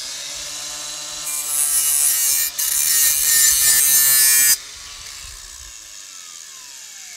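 Makita cordless angle grinder running free, then grinding the edge of a steel lawn mower blade for about three seconds with a loud hiss as the blade is sharpened. It is then lifted off and switched off, its pitch falling as it winds down.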